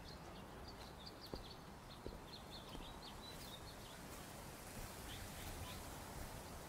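Faint outdoor ambience with small birds chirping in quick, short notes through the first half, over a low steady background hiss. A couple of soft taps about one and two seconds in.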